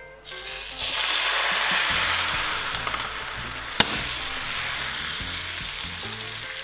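Crepe batter sizzling in a hot oiled crepe pan, the hiss starting up within the first second as the batter hits the pan and then holding steady. A single sharp click sounds near the middle.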